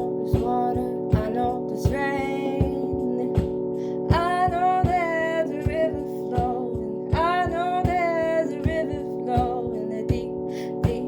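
A voice singing long, bending notes over an acoustic guitar strummed in a steady rhythm.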